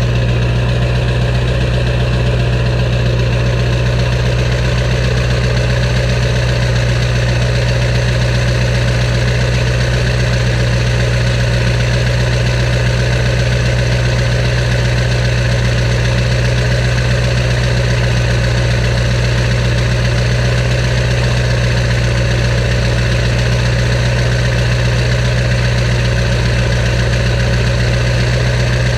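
Ford 7.3 L Power Stroke turbo-diesel V8 idling, a steady, unchanging low hum.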